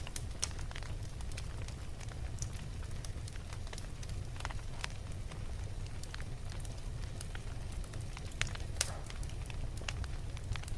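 Wood fire burning in a fireplace, crackling with irregular sharp pops over a steady low rumble, a few of the pops louder than the rest.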